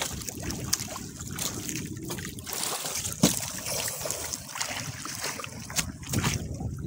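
Sea water lapping and splashing against the hull of a small outrigger boat, with scattered small clicks and one sharp knock about three seconds in.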